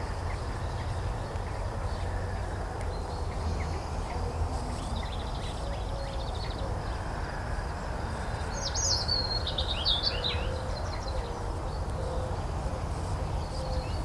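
Outdoor ambience with a steady low background rumble and songbirds: faint high chirps about four seconds in, then a louder, varied bird song phrase around nine to ten seconds in.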